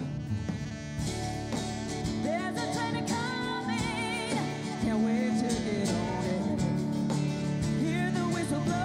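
Live band music with a woman singing lead over drums and electric guitar; the band gets louder about five seconds in.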